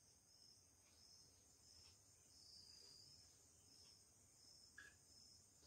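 Near silence: faint room tone with a thin, high, pulsing hiss throughout and one faint short squeak about five seconds in.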